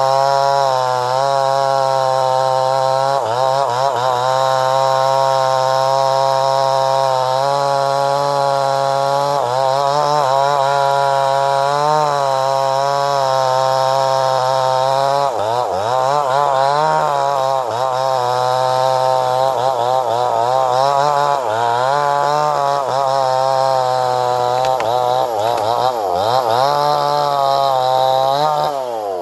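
Stihl two-stroke chainsaw running at high revs while cutting wood, its pitch dipping and recovering again and again as the chain takes load. The revs drop away at the very end.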